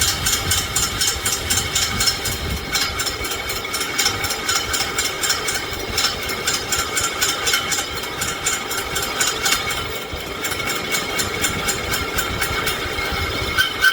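A machine running steadily, with a rapid, even ticking and a steady high whine over it.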